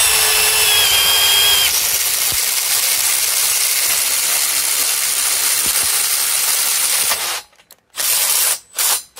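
Milwaukee M12 Fuel 3453 impact driver running on its third mode with an impact-rated step drill bit, cutting through 4 mm steel channel. It starts with a short whine, then runs loaded and hammering for about seven seconds until it stops as the hole is finished. Two short trigger bursts follow near the end.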